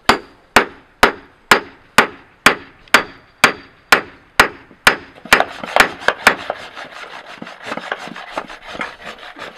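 Hand hammer striking a hot steel carriage bolt on a small anvil, about fifteen sharp ringing blows at roughly two a second, the last few coming quicker. About six seconds in the blows stop and give way to a dense, rough noise of small scrapes and clicks.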